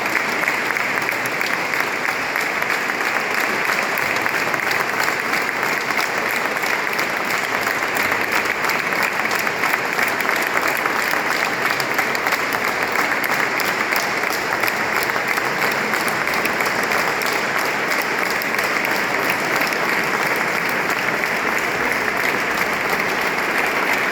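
An audience applauding: dense, steady clapping that keeps up without a break.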